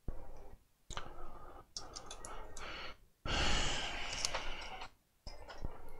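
Light typing and clicking on a laptop keyboard and touchpad, with a long breath into a headset microphone about halfway through.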